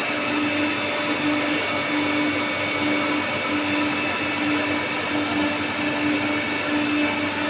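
Gun-drilling machine running steadily while boring gun barrels. It gives a constant mechanical whir with a low hum that pulses a little faster than once a second.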